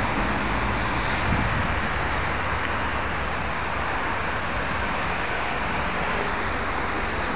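Steady road traffic noise: the continuous hiss of cars driving on a wide road.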